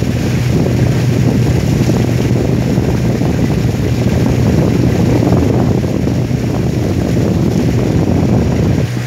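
A small river boat's motor running steadily under way, with a constant low hum and water rushing past the hull.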